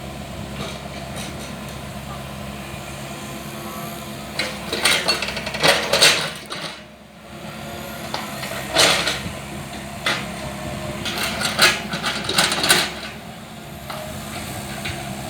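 Mini excavator engine running steadily. In the middle come several bursts of loud clattering and scraping, from the machine at work.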